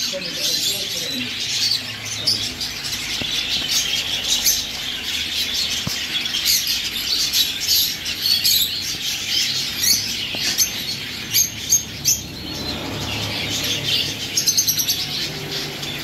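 A flock of caged budgerigars chirping and chattering together, a dense constant twittering with short sharp calls standing out.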